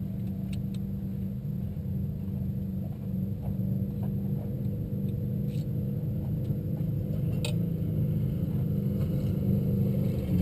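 Vehicle engine idling steadily with a low rumble, with a few faint clicks over it.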